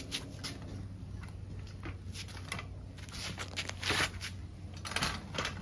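Irregular clicks, knocks and scrapes of a motorcycle paddock stand being set up under the bike, with a louder knock about four seconds in and another near the end, over a steady low hum.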